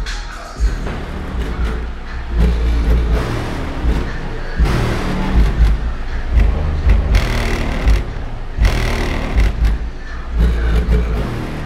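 Hip-hop song played loud through car subwoofers, heard from outside the car: heavy, pulsing bass dominates, with the rest of the song thinner above it.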